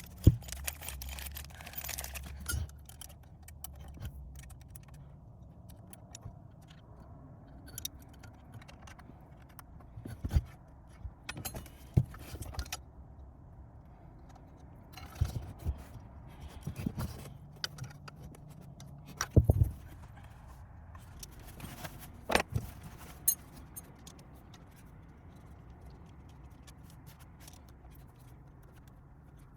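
Irregular clinks, knocks and a keys-like metallic jangle of hand tools and parts being handled during car work, with the louder knocks bunched around ten to twelve, fifteen to seventeen, and nineteen to twenty-three seconds in.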